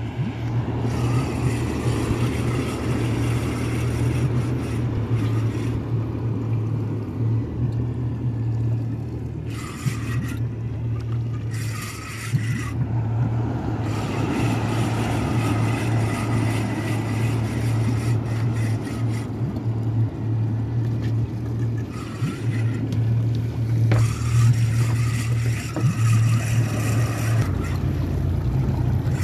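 Outboard motor running at a steady speed, a constant low drone, with the rush of water and wind as the small open boat moves over the sea.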